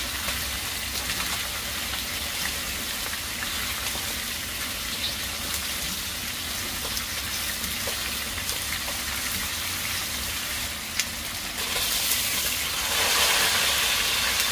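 Chicken pieces and sliced onion sizzling in oil in a non-stick wok while being stirred with a silicone spatula, with a few faint clicks of the spatula. The sizzle grows louder about 12 seconds in.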